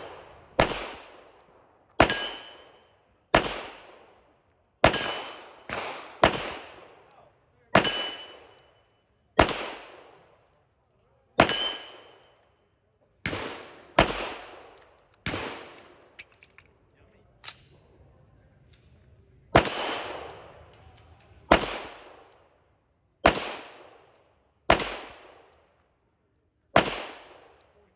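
A slow string of single gunshots, about one every one and a half seconds. Several are followed by a short metallic ring as a steel target is hit. About halfway through there is a pause with a few small clicks.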